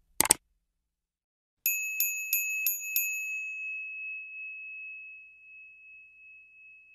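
Two quick clicks, then a small bell sound effect dinging five times in quick succession, about three strikes a second, with the last ring fading out over a couple of seconds.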